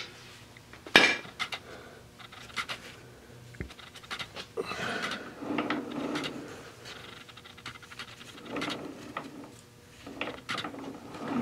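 Metal parts clinking and rubbing as a gloved hand handles the drive shaft and linkage under an ATV, with a sharp click about a second in.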